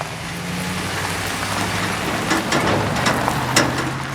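Truck engine running steadily while driving with a loaded log trailer in tow, under road noise, with scattered sharp clicks and rattles.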